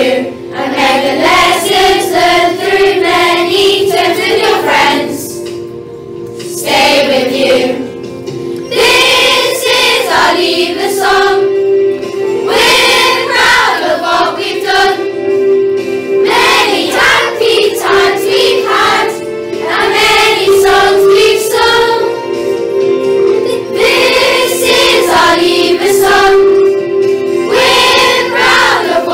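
A group of children singing a worship song together over held accompanying notes, phrase by phrase with short breaks between lines.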